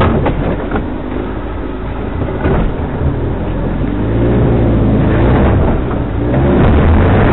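Off-road 4x4's engine running under load with a steady low rumble, revving up and down a few times in the second half as it works over rough ground.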